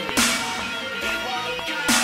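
Electronic music with steady synth tones and a heavy hit on the beat twice, just after the start and near the end.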